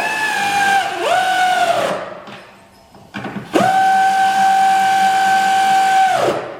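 Power drill running bolts for the hood hinges. It spins up three times, a steady whine each time that winds down as it stops: two short runs of about a second each, then a longer run of about three seconds.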